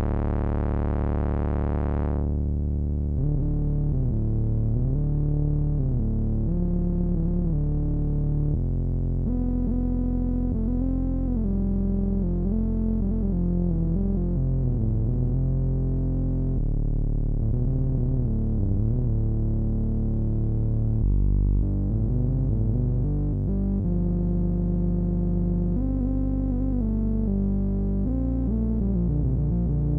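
Behringer Odyssey duophonic analog synthesizer playing: held low bass notes under a lead line that glides and bends between pitches. The sound opens bright and darkens about two seconds in as the filter closes.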